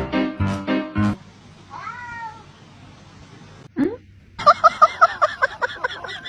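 A cat meowing, several calls in the first two seconds. About four seconds in, after a cut, a loud, fast-wavering animal call takes over and keeps going.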